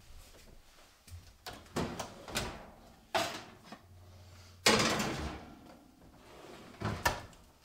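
Oven door opened and a lidded enamelled Dutch oven slid onto the oven rack, then the door shut: a string of separate metal clanks and knocks, the loudest about four and a half seconds in and another near the end.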